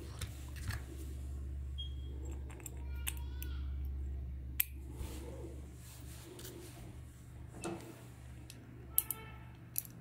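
Hard plastic toy parts being handled and fitted together, giving light clicks and taps: one about halfway through and a quick cluster near the end, over a steady low hum.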